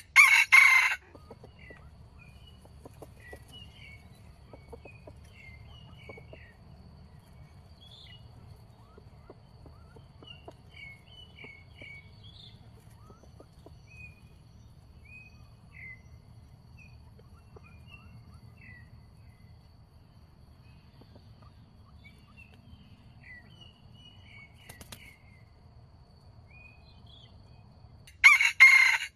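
A junglefowl (wild chicken) rooster crowing twice: one short, loud crow right at the start and another just before the end, with a long pause between.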